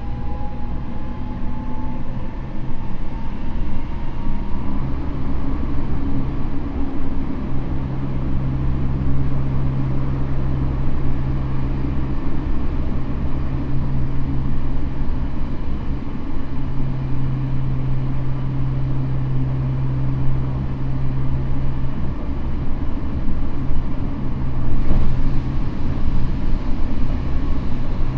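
Tokyo Metro N05-series electric train with Hitachi IGBT-VVVF control, running at speed: a faint motor whine rises in pitch and fades in the first few seconds, leaving a steady low hum and wheel-on-rail rumble. A sharp knock comes about 25 seconds in.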